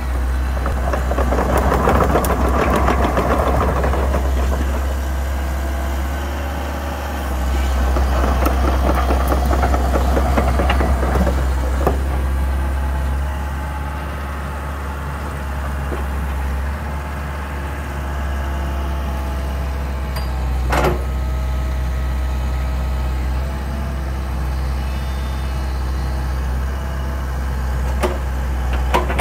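Komatsu PC88 excavator's diesel engine running steadily with its hydraulics working as the boom and arm move, the sound swelling louder twice in the first half. A few sharp knocks come in the second half, the loudest about two-thirds of the way through.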